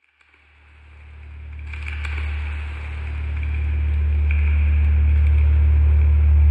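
A deep, steady low drone that fades in from silence and swells louder, with a fainter high hum above it.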